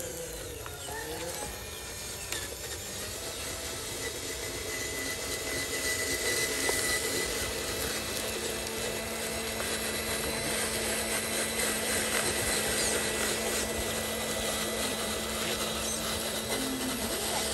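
Electric motor and gearbox of a radio-controlled model Hino dump truck whining steadily as it drives loaded with soil, growing louder about five seconds in as it comes closer.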